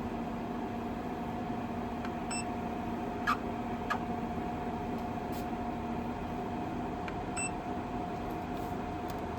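EcoFlow Wave 2 portable air conditioner running with a steady hum. Two brief high chirps come about five seconds apart, with a couple of sharp clicks between them. This is the test run after a firmware update in which the unit's abnormal noise came back.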